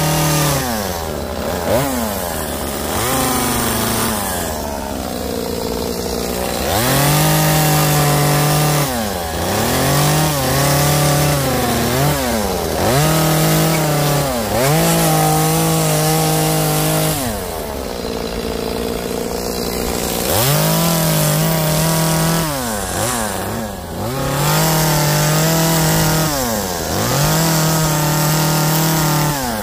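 Echo CS-2511P top-handle two-stroke chainsaw carving into western red cedar, revved up to full throttle for cuts of one to three seconds and dropping back toward idle between them, again and again.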